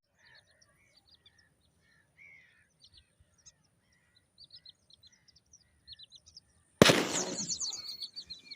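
Faint scattered bird chirps, then about seven seconds in a single loud shotgun blast that rings off. Right after it comes a rush of many bird calls as birds take off.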